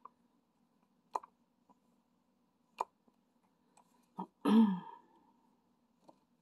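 A few sharp small clicks, spaced a second or more apart, from the diamond-painting pen and resin drills being pressed onto the canvas. About four and a half seconds in comes one brief, louder throat noise.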